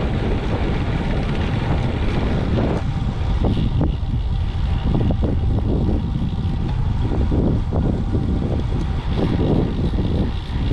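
Wind rushing over the microphone and road rumble from a road bike riding at speed: a steady, loud low roar with irregular gusty surges.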